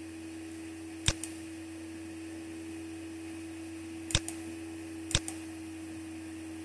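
Computer mouse button clicked three times, each a sharp press followed by a fainter release click, over a steady low electrical hum.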